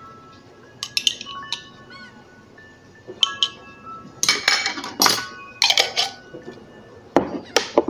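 Metal spoon clinking against a ceramic bowl several times, with light background music underneath.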